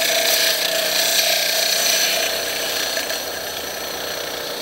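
A coarse wet sanding pad scraping against the rim of a glass bottle as it spins in a Roto-Rim sander on an electric motor, a steady hissing grind over the motor's quiet hum. The grind is loudest for the first couple of seconds, then eases a little.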